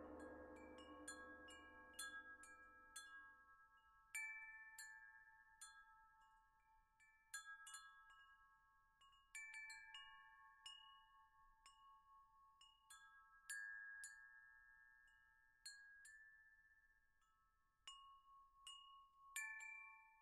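Faint, sparse chime-like bell notes struck one after another and left ringing, the closing bars of soft background music. A low, ringing tone fades out over the first few seconds.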